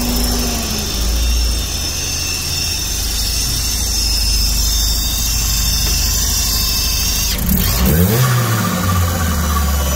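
Volvo 940's turbocharged four-cylinder engine idling with a steady high-pitched whine, the sound of air being sucked in past a leaking throttle body gasket. About seven seconds in the engine is revved once, its pitch rising and falling back.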